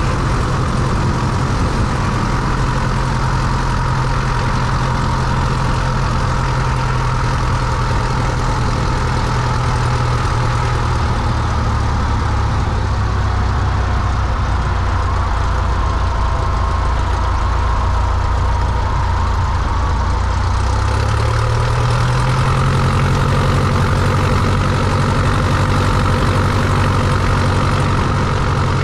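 Cessna 172's piston engine and propeller running at low idle power during the landing rollout, a steady low drone; the engine speeds up slightly about 21 seconds in.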